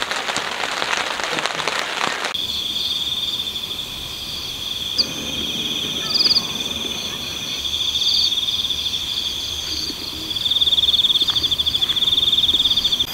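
A steady hiss like rain on the tent stops abruptly about two seconds in. It gives way to a night-time insect chorus, crickets trilling in a steady high pulsing tone that grows louder about ten seconds in.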